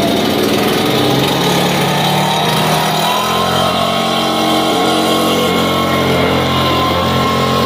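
Echo PB-9010 backpack leaf blower's two-stroke engine running steadily, its air blast sweeping a flagstone patio, with a slight shift in engine tone about three seconds in.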